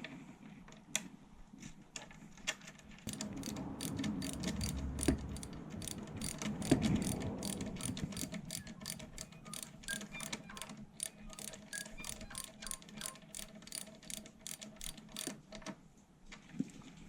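Socket ratchet clicking as a brake-line banjo bolt with copper crush washers is tightened: a steady run of clicks, about three or four a second, lasting some twelve seconds, with light handling noises.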